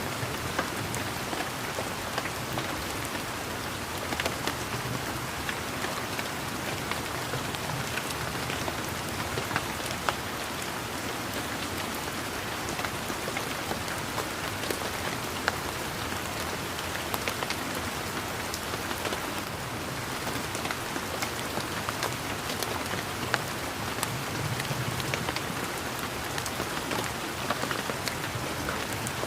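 Steady rain falling on a garden's leaves and surfaces: an even patter with many separate drops landing crisply throughout.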